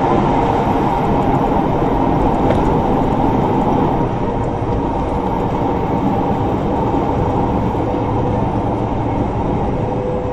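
Steady drone of engine and road noise inside a truck cab cruising at about 50 mph.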